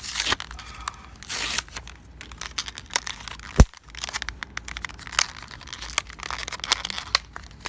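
Plastic blister pack of a Hot Wheels diecast car being cracked and torn open: crinkling, tearing and many sharp plastic clicks, with one loud thump about three and a half seconds in.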